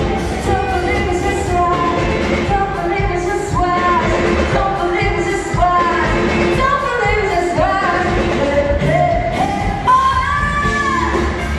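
A song with a lead singer over a full band, pop-rock in style, the voice holding and sliding between notes.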